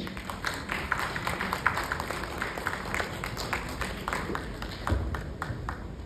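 Thin, scattered applause: a few people clapping unevenly, dying away near the end.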